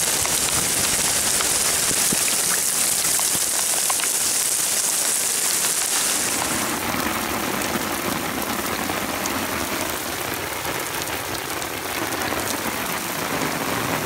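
Heavy rain falling on an asphalt road: a steady, even hiss of rain, whose character shifts about seven seconds in.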